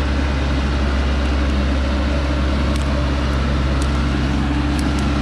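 Engine of a log-laden truck running steadily under load as it climbs a muddy slope, with a few faint clicks.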